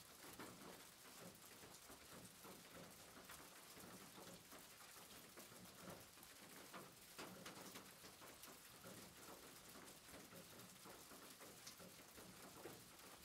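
Near silence: faint room tone with scattered soft ticks.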